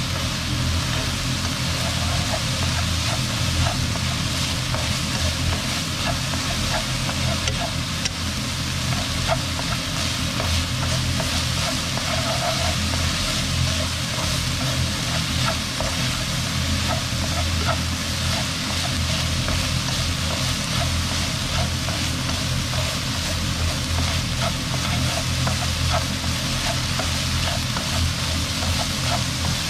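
Minced pork with shiitake mushrooms and onion sizzling as it is dry-fried in a nonstick wok, stirred and scraped with wooden chopsticks. A steady low hum runs underneath.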